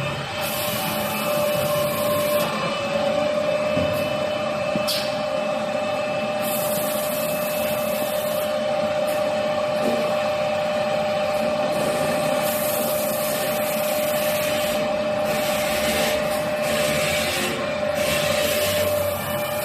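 Toilet paper log saw cutting machine running: a steady machine hum with a constant mid-pitched tone, broken every few seconds by a high hiss that lasts one to two seconds.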